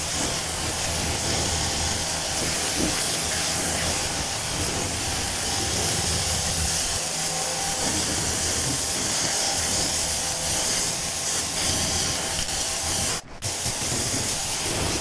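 Water spraying steadily from a pressure washer wand, rinsing soap off a car's paint, with a brief break in the spray near the end.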